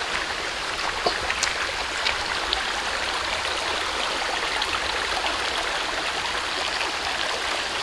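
Stream water rushing over rocks in a steady, even wash, with a few faint clicks in the first couple of seconds.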